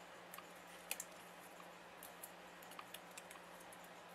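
Faint handling of cardstock paper pieces being fitted in place: a few small scattered clicks and light rustles over a faint steady low hum.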